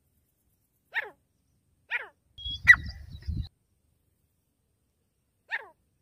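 Short, sharp animal calls, each dropping quickly in pitch: two about a second apart, then one more near the end. In between comes a rumbling knock with a sharp click, the loudest sound.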